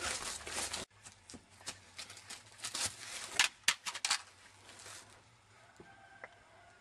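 Footsteps crunching through dry fallen leaves, heard as scattered short crackles and clicks with handling of a handheld camcorder. A louder noisy stretch cuts off abruptly about a second in.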